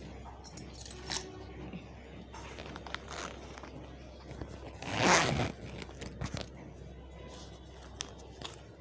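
Zipper of a quilted wallet being pulled, one loud zip about halfway through, with small clicks and handling rustle as hands rummage inside it.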